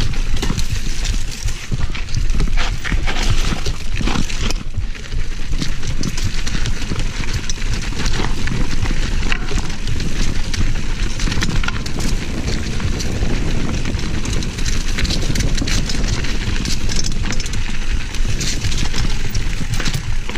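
Mountain bike rolling down a rocky dirt trail: tyres crunching over stones, with constant rattling and clattering knocks from the bike and low rumble on the helmet-camera microphone.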